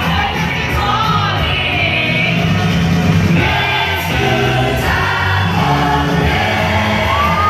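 Loud music with singing voices over a steady bass line, as for a stage dance number.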